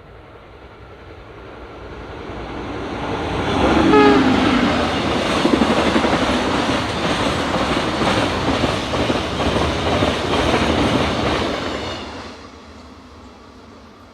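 A train approaches and grows louder for about four seconds, with a brief falling tone as it draws level. It then passes loudly with a rapid clatter of wheels over the rails for about eight seconds and fades quickly near the end.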